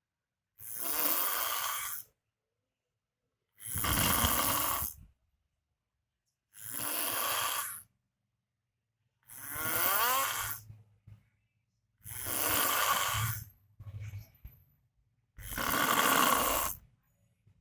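A sleeping person snoring very loudly: six long, rasping snores, one about every three seconds, with silence between them.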